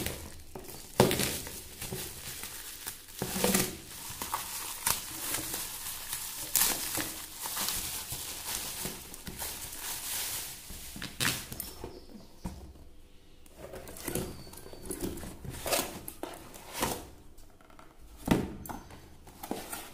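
Hands unwrapping a parcel: black plastic wrapping crinkling and packing tape tearing, then a cardboard box being handled and its flaps pulled open, in irregular rustles with a quieter pause about two-thirds of the way through.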